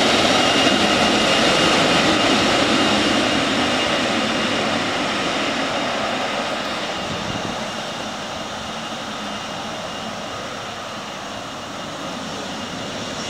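Boeing 777-200F freighter's twin GE90 turbofans running at taxi power: a steady jet rush with a high whine on top. The sound fades gradually as the jet moves away.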